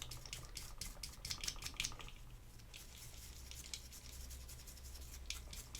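Toothbrush bristles scrubbing small metal wheel hubs wet with window cleaning liquid: quick, faint, irregular scratchy strokes, busiest in the first two seconds and again near the end.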